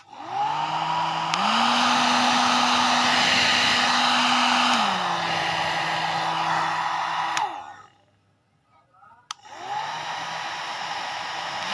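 Hand-held hair dryer switched on, its motor spinning up into a steady whoosh of air. About a second in, a click and it steps up to a higher, louder speed, then drops back to the lower speed. It is switched off and winds down with a falling hum, then after a click is switched on again at the low setting.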